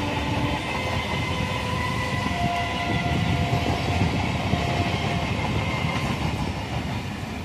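Eastern Railway EMU suburban local train running past on the track: a steady rumble of wheels on rails.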